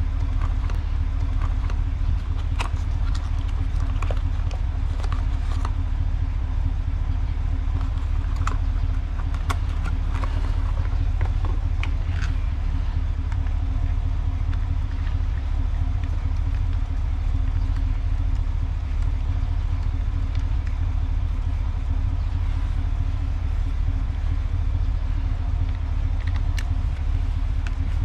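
Steady low rumble with a hum, and scattered small clicks and knocks of hands handling plastic and brass pressure-washer hose fittings.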